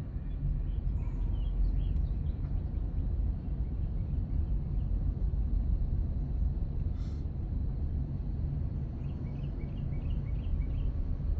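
Steady low rumble of a vehicle running, with a few faint bird chirps about a second in and again near the end.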